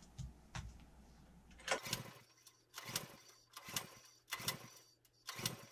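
Recoil starter cord of a small petrol walk-behind tiller being pulled five times in quick succession, each pull a short whirring rasp of the engine turning over without firing. The engine will not start after sitting unused for 18 months; the owner suspects stale ethanol (E10) petrol gumming it up. Two light knocks come before the first pull.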